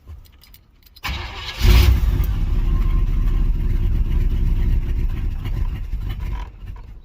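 A cold carbureted 305 H.O. small-block Chevy V8 is cranked by its starter about a second in and catches half a second later after one pump of the gas pedal. It runs for about five seconds, then fades and dies near the end: a cold hard-start where the engine fires but will not stay running without the gas held down.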